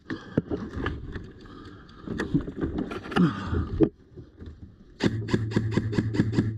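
Scraping and rustling with a few sharp clicks for about four seconds. Then, about five seconds in, background music starts: guitar over a steady, even beat.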